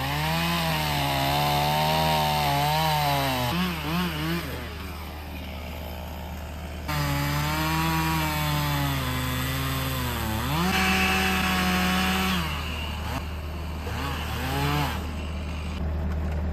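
Gas chainsaw running and being revved, its engine pitch rising and falling over and over, with a dip to a lower idle partway through and a steady high-speed stretch about two-thirds of the way in. This fits cutting the ends off a log.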